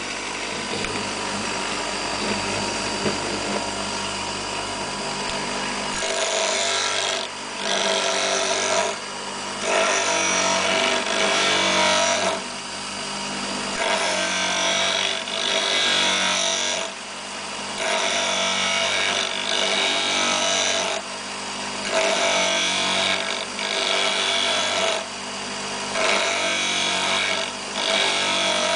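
Electric grinder running steadily, then, from about six seconds in, a twist drill bit held in a sharpening arm is pressed against the grinding wheel in repeated grinding passes of one to three seconds each, with short gaps between, as the second lip of the drill point is sharpened.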